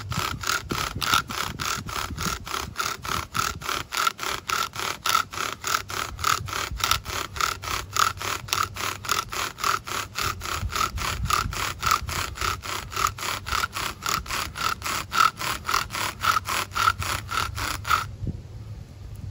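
Bow drill running: a horseweed spindle turned back and forth by the bow in a Leyland cypress fireboard, a rhythmic rasping squeal at about three strokes a second as the friction works up smoke toward an ember. The strokes stop suddenly near the end.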